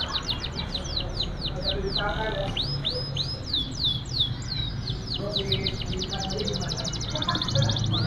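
Domestic canary in full song: fast trills of short falling whistled notes, switching to slower, wider notes about two seconds in, then to a very fast, fine rolling trill near the end.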